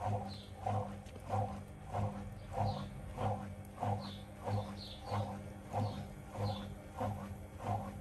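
Samsung front-loading washing machine's drum turning with the door open: a steady motor hum with a low pulse about every 0.6 s, and a faint high squeak about once a second.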